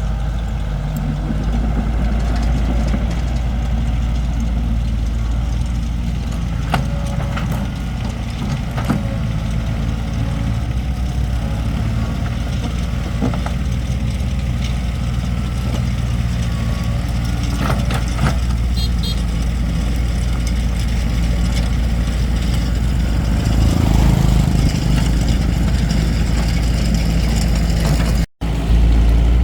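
A heavy engine idles steadily with a low hum, and scattered knocks and clatters sound over it. The sound cuts out for a moment near the end.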